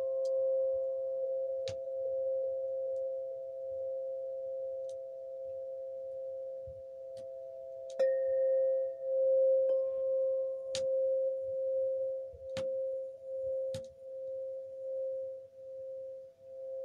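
A struck sound-healing instrument ringing a steady pure tone with a second note just above it. It is struck again about eight seconds in and then swells and fades in slow pulses. A few light taps and brief higher pings sound along the way.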